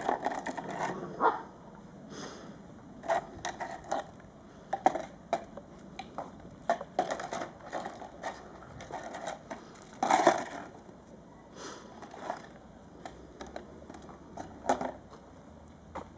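Puppy mouthing and dragging a crumpled piece of cardboard over paving stones: irregular crackling and scraping, loudest about ten seconds in.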